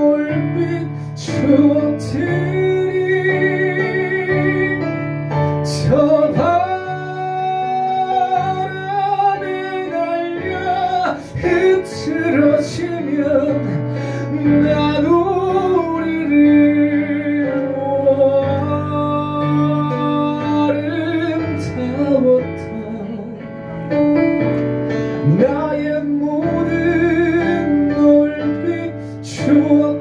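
Live ballad performance: a male voice singing long, vibrato-laden phrases over sustained chords on a Yamaha CP stage piano.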